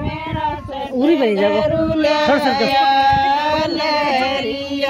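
A group of women singing a folk song together, several voices drawing out long held notes.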